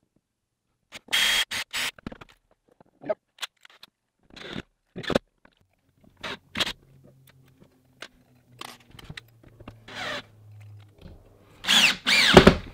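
Cordless drill driving screws to fit a concealed hinge onto a wooden cabinet door, running in short bursts with clinks and scrapes of the metal hinge hardware in between. The longest and loudest run comes near the end, its motor whine rising and falling.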